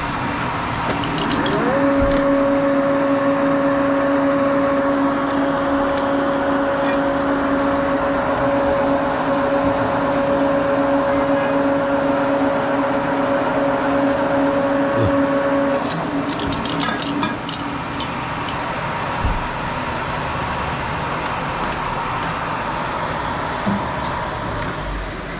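A machine's electric motor starts with a short rising whine, hums steadily at one pitch for about fourteen seconds, then stops, followed by a few light clicks.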